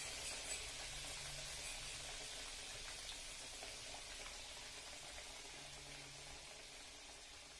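Murukulu deep-frying in hot oil in a kadai: a steady sizzle with small crackles, growing slowly quieter.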